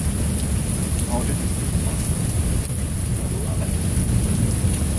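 Heavy rain pouring steadily during a thunderstorm, under a continuous low rumble of thunder.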